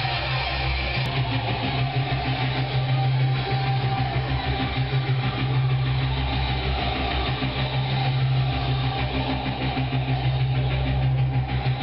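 Background music over a steady low hum.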